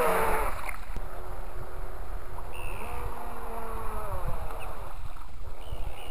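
Radio-controlled model boat's motor whining loudly as the boat passes close by at speed. Its pitch falls and it drops away about a second in, then carries on fainter, rising and falling in pitch as the boat runs and turns further off. Water and wind noise low underneath.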